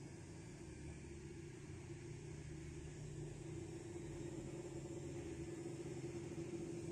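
Steady low hum over a faint hiss, slowly growing louder.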